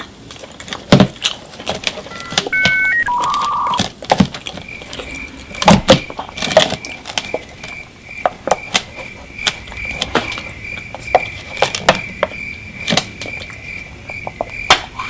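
An electronic chime: a few short beeps, then from about five seconds in a single high tone beeping steadily over and over, among scattered clicks, knocks and rustling handling sounds.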